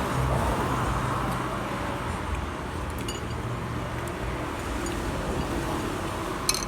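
Steady road-vehicle and traffic noise with a low hum, and a sharp click near the end.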